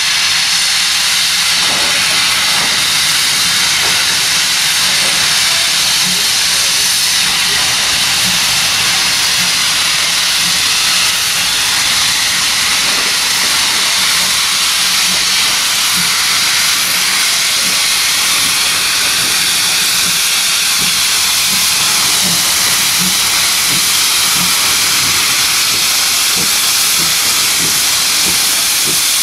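Steam locomotive venting steam in a loud, steady hiss that goes on without a break.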